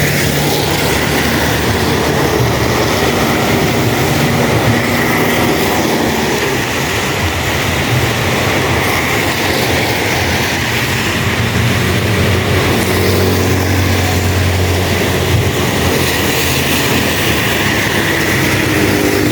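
Heavy rain falling steadily, with the low hum of motor vehicle engines running underneath and shifting in pitch.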